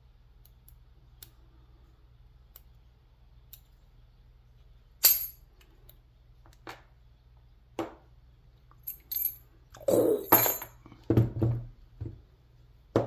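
A pick and tension tool at work inside a steel round-body padlock: faint scattered clicks at first, then sharper metallic clicks, and a run of louder clinks and knocks of the lock being handled in the last few seconds.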